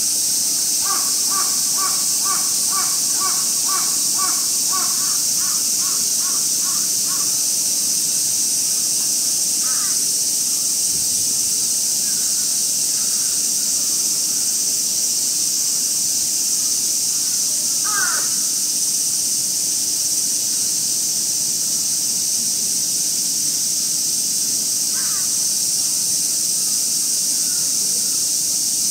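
A crow cawing outdoors in a quick run of about a dozen calls over the first several seconds, then giving single calls now and then, over a steady high-pitched hiss.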